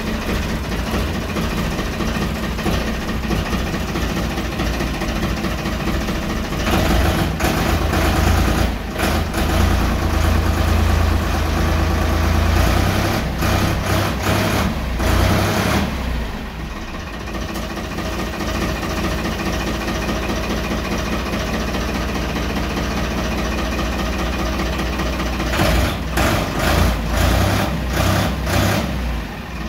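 Diesel tractor engine running steadily. Its speed rises for several seconds about a quarter of the way in and then drops back. Near the end it rises and falls in a few quick surges.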